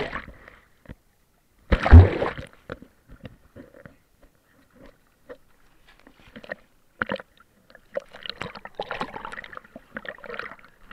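Water splashed by a swimming bull terrier, recorded at a camera right at the waterline: one heavy splash with a thud about two seconds in, scattered smaller splashes, then continuous sloshing near the end as the dog paddles toward the camera.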